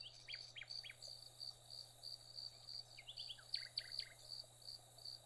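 Faint outdoor ambience: an insect trilling in steady, evenly spaced high pulses, with quick downward-sweeping bird chirps, a few near the start and a cluster about three to four seconds in.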